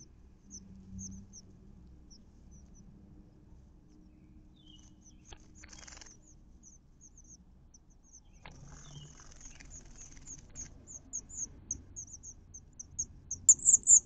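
Nestling songbirds giving thin, very high, short chirps in a series. The chirps come sparsely at first, then grow faster and louder near the end as the nestlings beg with gaping beaks. A sharp click comes just before the end.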